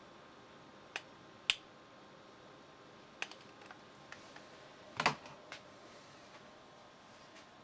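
Sharp plastic clicks and knocks from handling an infrared thermometer and the camera: two clicks about a second in, a few lighter ticks around three to four seconds in, and a louder, duller knock about five seconds in.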